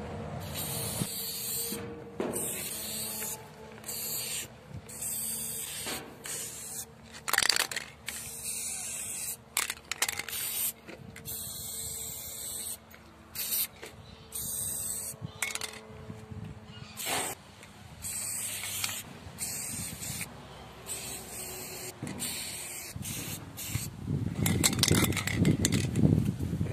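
Aerosol spray paint can hissing in many short bursts with brief gaps between them. Near the end a louder low rushing noise comes in.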